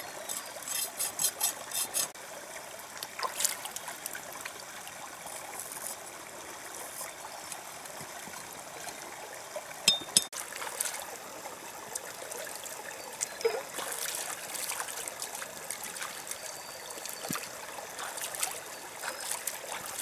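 Shallow stream trickling and splashing around a cow's head as a knife scrapes its hide, with quick, even scraping strokes in the first couple of seconds. A pair of sharp clicks stands out about halfway through.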